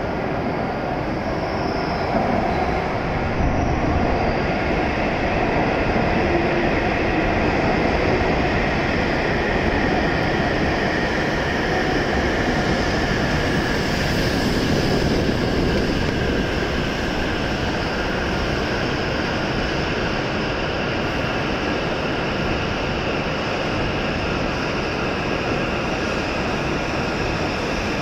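E7-series Shinkansen train running in alongside the platform and slowing toward a stop. Its steady running rumble swells as it passes close, under a faint electric whine that slowly falls in pitch as it decelerates.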